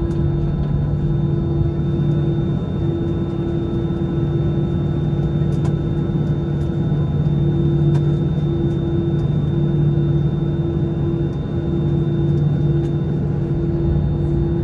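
Cabin noise inside an Airbus A319 on the ground: a steady low rumble with a droning two-note hum from the engines running at low power as the airliner taxis. The higher note of the hum keeps cutting in and out.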